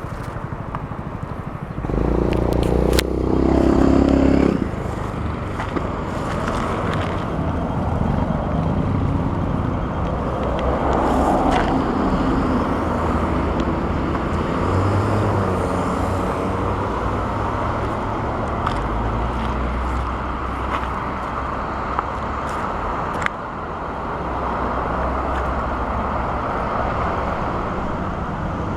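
Road traffic passing by, a steady run of cars on a main road, with one louder vehicle going past about two seconds in.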